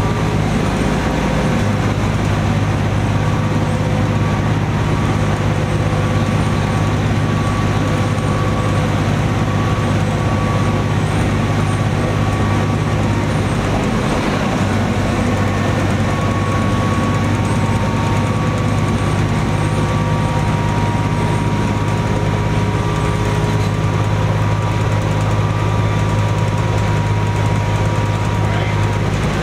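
1998 New Flyer D40LF transit bus under way, heard from on board: its Cummins ISC inline-six diesel running steadily under road noise, a deep even drone with a faint steady whine above it.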